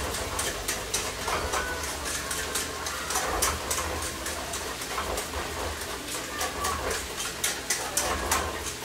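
Potatoes frying in a stainless sauté pan, crackling and sizzling in many small irregular pops, over a low steady hum.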